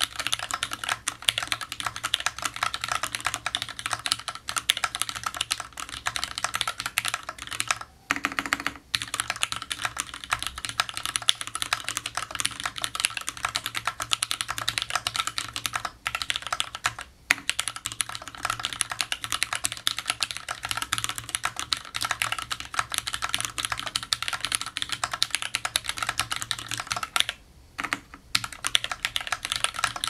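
Continuous fast typing on a custom Alice-layout mechanical keyboard (Tomu Nunu) with lubed, filmed Cherry MX Black linear switches on a top-mounted aluminium plate and GMK keycaps. Keystrokes come thick and fast, with two short breaks, about eight seconds in and again near the end.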